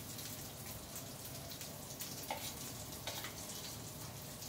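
Blended chili, onion, garlic and ginger sambal paste sizzling in hot oil in a wok, a steady crackle, with a few light clinks of a spoon against a bowl as chili sauce is spooned in.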